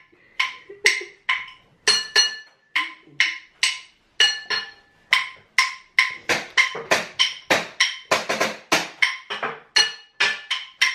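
Wood block struck over and over in an uneven rhythm: sharp, ringing knocks, about two or three a second at first and quickening to about four a second in the second half.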